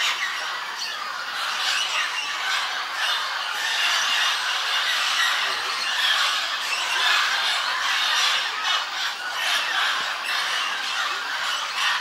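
A large mixed flock of parrots, mealy amazons and blue-headed parrots, squawking in a dense, continuous chorus while feeding at a clay lick.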